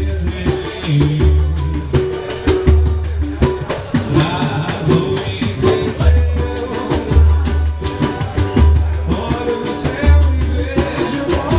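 Live band playing upbeat music: hand drums keep a dense, fast rhythm over a deep repeated low beat, with singing in stretches.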